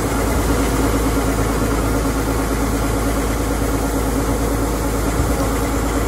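Combine harvester engine running steadily while its unloading auger pours harvested rice grain into a sack, a steady rushing hiss over the engine drone.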